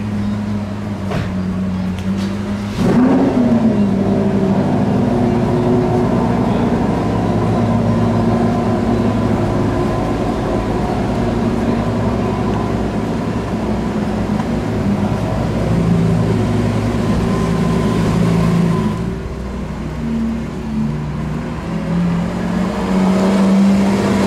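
Lamborghini Sián FKP 37's V12 engine idling, with a quick rev blip about three seconds in, then rising as the car pulls slowly past close by near the end.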